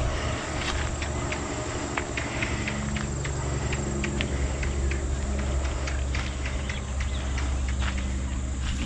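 Short scuffs and ticks of movement on the dirt floor of a quail pen, about three a second, over a steady low hum.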